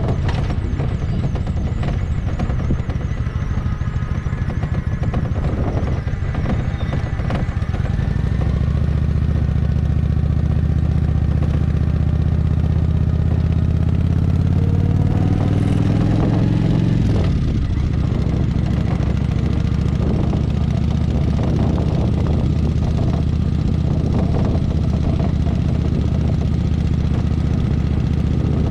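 Kawasaki Vulcan 900's V-twin engine running as the motorcycle cruises at low speed. From about a third of the way in it grows louder and climbs slightly in pitch, then drops off abruptly a little past the middle as the rider eases off or changes gear.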